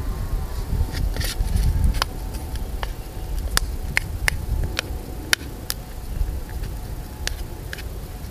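Irregular sharp clicks of a spoon knocking and scraping bacon pieces around a small titanium pan on a wood-burning stove, about a dozen over several seconds, with wind rumbling on the microphone underneath.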